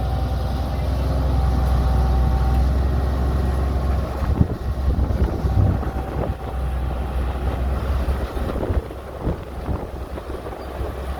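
Heavy diesel machinery running with a steady low drone, wind buffeting the microphone, and a few knocks between about four and six seconds in.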